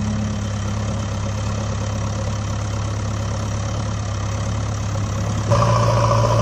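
Engine idling sound effect for a backhoe loader: a steady low hum that, about five and a half seconds in, takes on a fuller, higher note and grows slightly louder.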